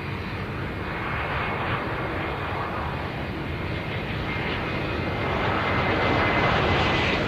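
Airbus A320-232's IAE V2500 jet engines on final approach, a rushing jet noise growing louder as the airliner comes closer, with a steady high whine over it.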